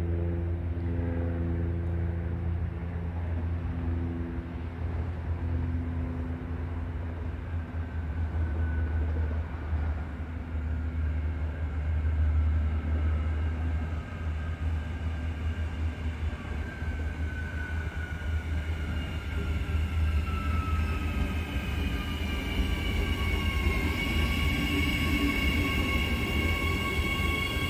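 Adelaide Metro 4000-class electric multiple unit approaching and pulling into the station: a steady low rumble, with an electric whine that falls in pitch as the train brakes and settles to steady tones near the end.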